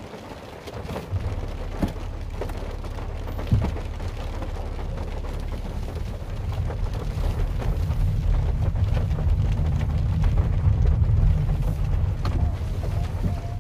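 Heavy rain hitting the roof of a Nissan Note e-POWER, heard from inside the cabin: a dense patter of drops over a deep rumble that grows louder about halfway through.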